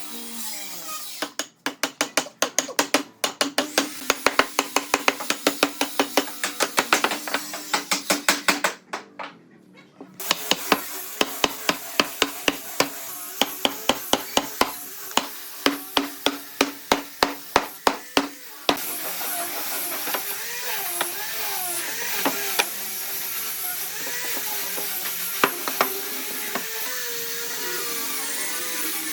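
Rapid series of sharp knocks on wood, several a second, with a short break about nine seconds in. About nineteen seconds in the knocking gives way to a steady noisy sound with wavering tones.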